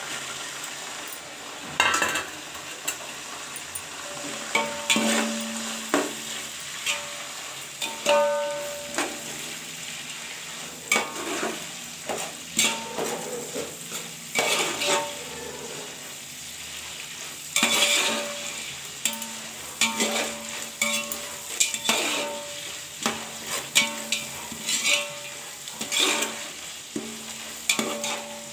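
Coriander and mint leaves, onions and soaked dried peas sizzling in hot oil in a large metal pot while a metal spoon stirs them, scraping and knocking against the pot at irregular intervals, about once a second. Several knocks leave a short ring from the pot.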